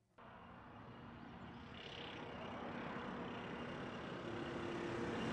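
Tuned Copen GR Sport K-car with its turbocharged 660cc three-cylinder on a top-speed run, heard from trackside: engine and rushing noise that grow steadily louder as the car approaches, with a faint steady engine note.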